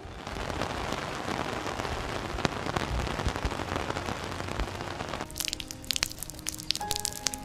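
Heavy rain falling in a steady hiss. About five seconds in it gives way to sharper, scattered drops and splashes.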